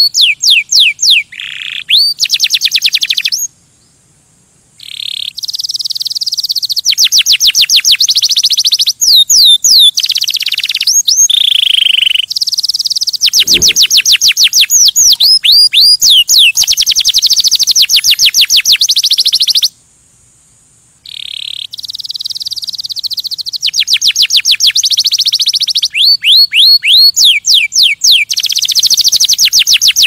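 Male canary singing loud, fast trills of rapidly repeated high notes mixed with quick rising whistles. The song breaks off in two short pauses, one a few seconds in and one about two-thirds of the way through.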